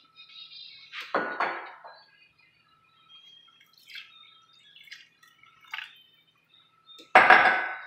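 Water poured from a mug into a pot of uncooked seasoned rice, splashing in short spurts, with light clinks of the mug against the pot. The loudest splash comes near the end.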